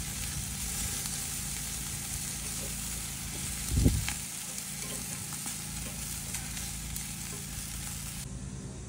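Chicken wings sizzling on the grate over hot charcoal as they are moved with tongs, with a soft thump about four seconds in. The sizzling cuts off near the end.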